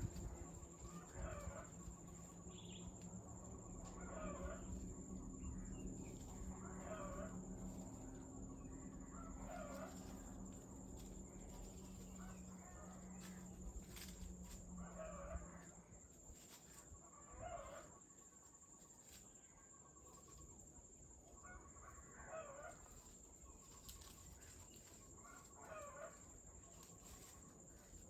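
A bird's short call, repeated every one to three seconds and fainter after the middle, over a steady high-pitched whine.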